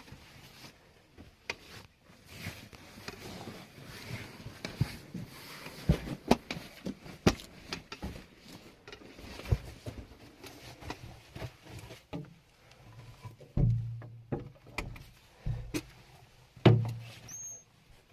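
Irregular footsteps, scuffs and knocks on stone and gravel, with a few heavier low thumps near the end.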